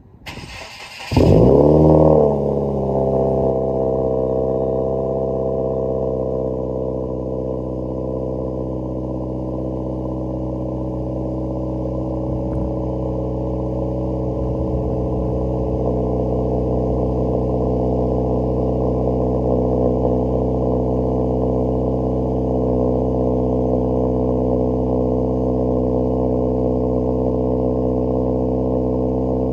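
2018 Subaru WRX's turbocharged flat-four engine cranking and starting about a second in, flaring up in revs, then settling into a steady idle through a newly fitted catted J-pipe.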